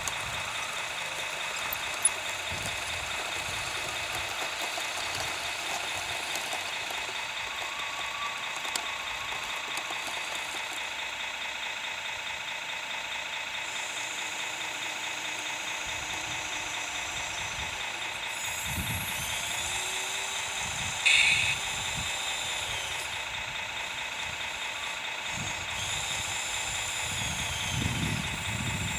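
Radio-controlled tracked loader running: a steady, high motor whine whose pitch shifts as it drives and works its bucket. There is a short, louder burst a little past the middle and a few low thuds near the end.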